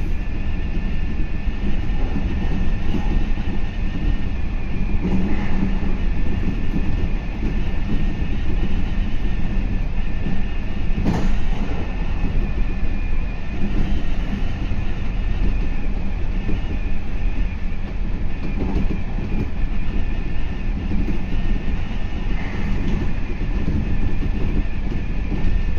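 Meitetsu 3500 series electric train running steadily at speed: a continuous low rumble of wheels on rail with a steady high whine over it, and one sharp click about eleven seconds in.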